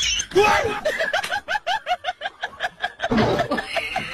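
Laughter: a quick run of about a dozen short "ha" syllables, with music under it.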